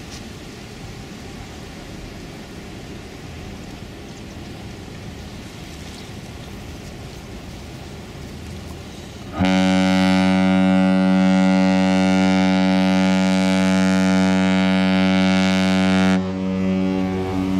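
Container ship's horn sounding one long, deep blast of about seven seconds, starting about halfway through and cutting off suddenly, then carrying on more faintly for a moment. A steady background rumble comes before it.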